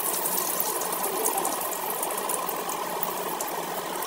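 Potatoes frying in hot oil in a pan: a steady sizzle with fine crackles throughout.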